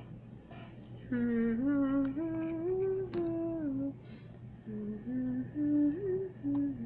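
A girl humming a tune in two short phrases of held notes that step up and down.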